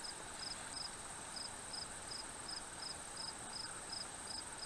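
Crickets chirping: a faint, regular high chirp about three times a second over a steady high-pitched trill.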